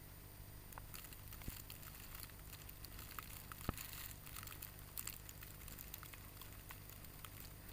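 Footsteps crunching through fresh snow: an irregular run of small crackles over a steady low rumble.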